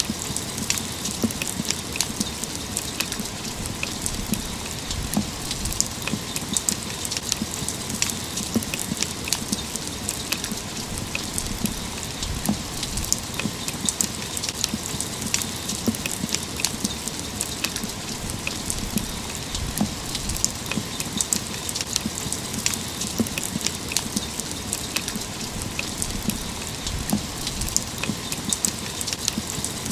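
Steady rain falling, an even hiss thick with many sharp, close drop impacts.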